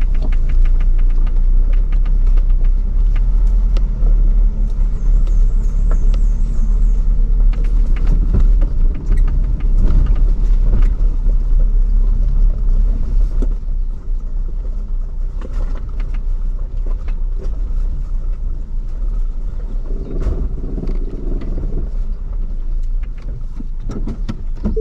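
Ford Bronco crawling along a rough dirt trail: a steady low engine rumble with frequent short knocks and rattles from the rough ground.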